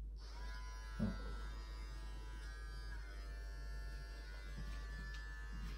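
Electric hair clippers switched on just after the start and running steadily, their tone shifting a little partway through. There is a short soft knock about a second in.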